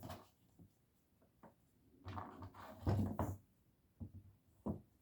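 A series of short knocks, clicks and rustles of objects being handled, busiest in the middle, then two single knocks near the end.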